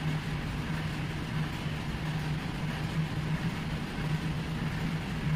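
Steady low hum under a constant background hiss, unchanging in level and pitch.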